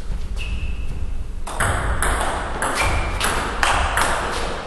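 Table tennis rally: the ball clicking sharply off the paddles and the table, one lone click near the start and then a quick run of hits, about two a second, from about a second and a half in.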